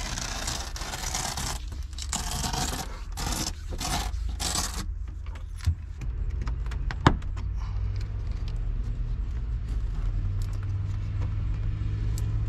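Hook-and-loop Velcro tearing as an LED light strip is pulled off its backing: a run of rasping rips over the first five seconds, then quieter handling with a few sharp clicks over a steady low rumble.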